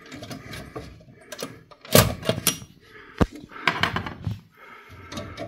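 Scattered clicks, knocks and rattles of hands working at a PC case's metal PCIe slot brackets and an expansion card, trying to get the card back out. The loudest knock comes about two seconds in, and a sharp click follows a little over a second later.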